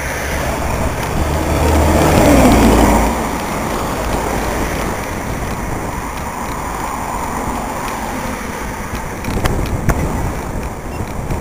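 Wind rumbling on the bicycle camera's microphone, mixed with road traffic noise as a motor vehicle passes, loudest about two to three seconds in. A few sharp knocks near the end.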